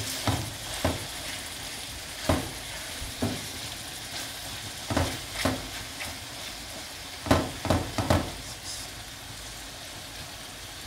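Egg sauce of scrambled egg, tomato, onion and fish sizzling in hot oil in a frying pan. A spoon stirs it, scraping and tapping against the pan about nine times at uneven intervals.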